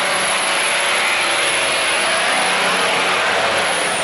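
Steady loud roar of boat engines over water rushing through a sluice gate against the current.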